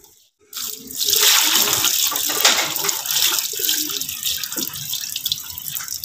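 Water from a garden hose splashing into a plastic tub of soaking corn kernels as they are rinsed. It starts about half a second in and runs steadily.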